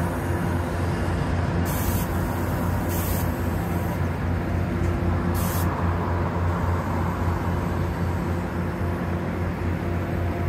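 Brookville BL20GH diesel locomotive running with a steady low engine drone as the train moves off and the locomotive rolls past close by. Three short hisses come in the first six seconds.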